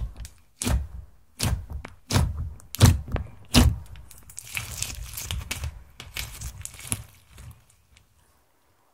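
Glittery clear slime, mixed with makeup and glitter, being poked and pressed with the fingers: a series of thuds about every three-quarters of a second, then a run of crackling and small pops as it is pressed flat, fading out near the end.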